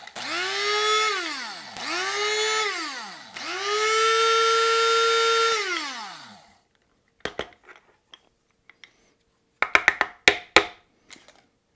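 Krups electric blade spice grinder grinding whole psyllium husks into powder in pulses. Its motor whines up in pitch and winds down after each press: one run ends, a short second one follows, and the third is held longer before it spins down. Then a few sharp clicks and knocks as the grinder is turned over and handled.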